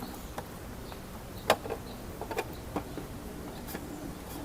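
Scattered light clicks and taps as an oil filter is pushed and fitted into its housing during an oil change, the sharpest about a second and a half in.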